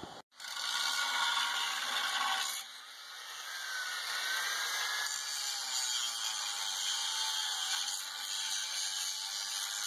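Power grinder grinding steel, a steady hiss with a faint whine that rises and falls with the load. It eases about two and a half seconds in, then runs on.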